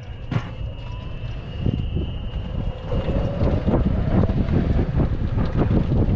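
Wind buffeting the microphone with a heavy low rumble, growing louder about halfway through.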